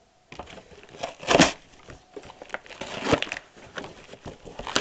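Cardboard shipping box being pulled and torn open by hand: a run of crackling, crinkling handling noises, the loudest about a second and a half in.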